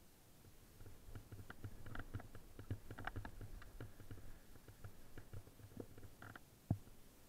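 Fat bike riding over snow: faint irregular clicks and rattles with soft low knocks, and one sharper knock near the end.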